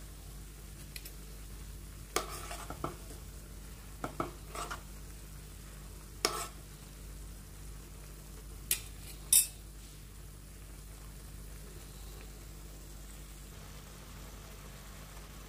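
A spoon stirring Maggi noodles in a pan of simmering broth, knocking and scraping against the pan about seven times in the first ten seconds, the last knock the loudest. A low steady hum runs underneath.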